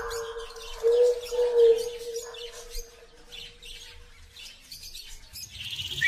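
Small birds chirping in many short, quick calls, over a steady held low tone that wavers about a second in and fades out after about four seconds.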